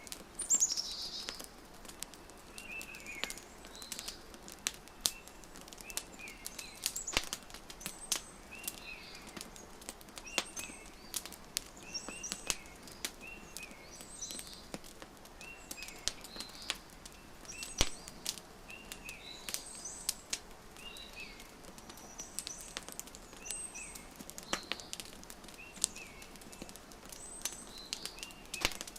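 Wood fire crackling, with scattered sharp pops, mixed with birds chirping in short calls repeated every second or two.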